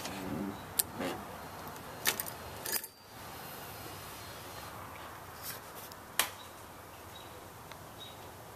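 A bunch of keys rattling and clicking as a key is worked in a brass knob door lock: several sharp metallic clicks in the first three seconds, then a few more clicks and faint jingles as the keys swing from the lock.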